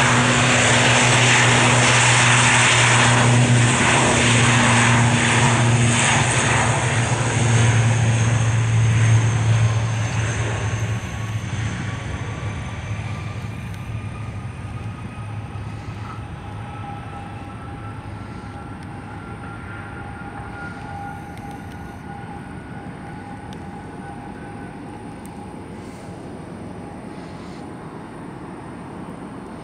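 ATR 72 twin-turboprop airliner at take-off power: a steady low propeller drone, loudest in the first ten seconds as it passes during the take-off roll, then fading away as it lifts off and climbs out.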